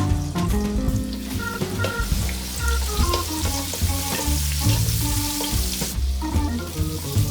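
Food sizzling as it is stir-fried in a pan, over jazz background music with a stepping bass line. The sizzle grows louder about two seconds in and drops away about six seconds in.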